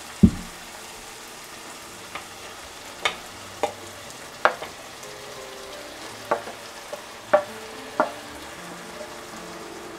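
Onion-tomato masala sizzling quietly in a frying pan while a wooden spatula scrapes and taps mashed roasted eggplant off a steel plate into it, giving about eight sharp clicks spread through. A single dull knock comes right at the start.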